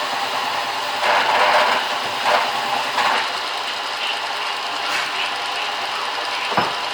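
Belt sander running steadily, with rasping surges as a rubber boot sole is pressed against the moving sanding belt to scrub out a clog of gummy yellow-pine sap. A single sharp knock near the end.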